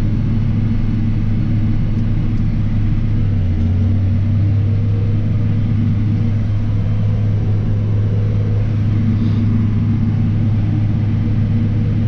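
Case IH tractor's diesel engine running steadily at road speed, heard from inside the cab as a constant low drone.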